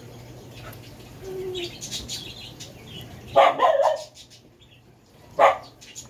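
A dog barking: three quick barks about three and a half seconds in, then a single bark near the end.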